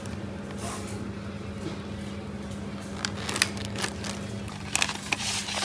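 Plastic fruit tray crinkling and clicking as it is handled and set into a plastic shopping basket, with a few sharp clicks about three seconds in and again near the end, over a steady low hum.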